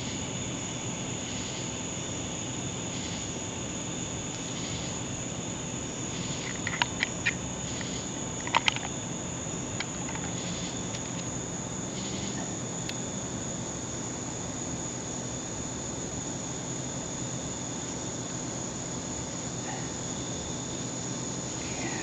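A steady, high-pitched chorus of night insects, with a softer pulse repeating about every two-thirds of a second. A few short, sharp clicks come near the middle, about seven and eight and a half seconds in.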